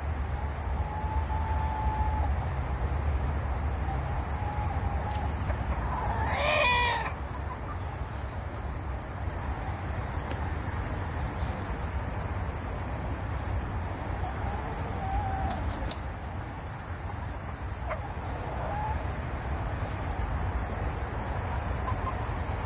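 Rooster crowing once, about six seconds in, over a steady low background rumble.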